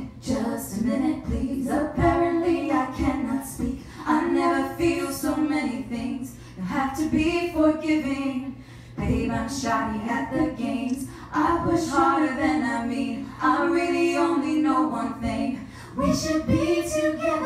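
A woman singing a song unaccompanied into a microphone, in phrases of a second or two with short breaths between them.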